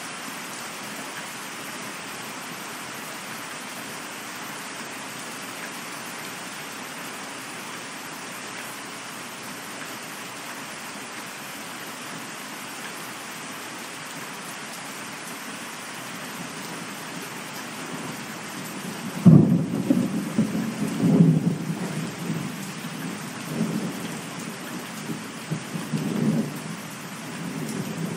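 Steady rain, joined about two-thirds of the way through by a sudden clap of thunder that rumbles on in several swells.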